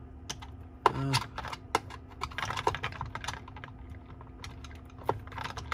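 Plastic screwdriver handles clicking and knocking against each other and the rack as they are picked through, a run of light irregular clicks.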